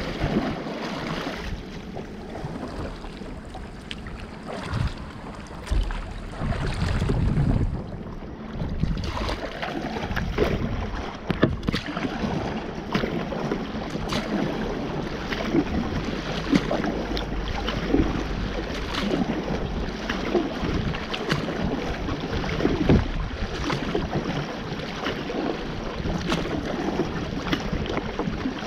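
Kayak paddle strokes: water splashing and dripping off the paddle blades in quick irregular ticks, with water lapping at the hull. Wind gusts on the microphone at times, most strongly a few seconds in.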